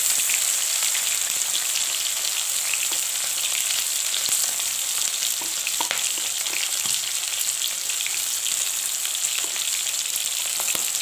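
Hilsa fish heads with green chilli and ginger paste frying in oil in a kadai: a steady sizzle with small crackles and pops scattered through it.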